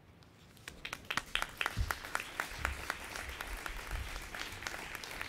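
Audience applauding: scattered claps begin about a second in and build into steady applause.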